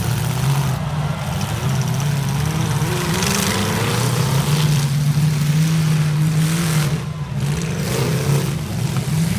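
Demolition derby cars' engines running and revving hard, several at once, their pitch rising and falling again and again over a steady low drone.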